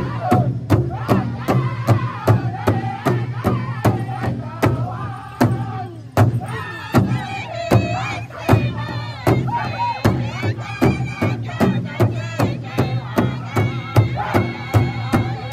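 Powwow drum group striking a large shared drum in a steady beat, about three strikes a second, while the men sing an intertribal song in loud, high voices. After a short dip about six seconds in, the singing climbs higher.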